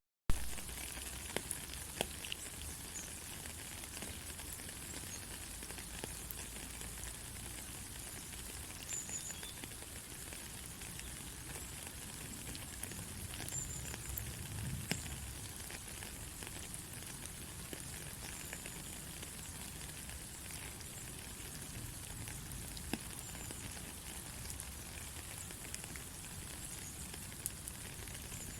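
Steady rain: an even hiss with scattered sharp ticks of drops hitting a surface. A brief dropout and a single loud click come right at the start.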